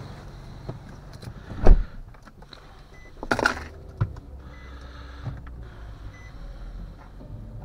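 A car door thumps shut about two seconds in, followed by a brief rustling scrape and several short, faint chime beeps from the Nissan's dashboard, over a low steady hum.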